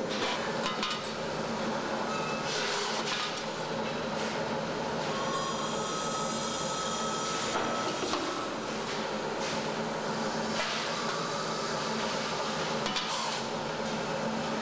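Forging-shop machinery running steadily with a constant hum, a few sharp metal clanks scattered through it and a spell of hissing around the middle.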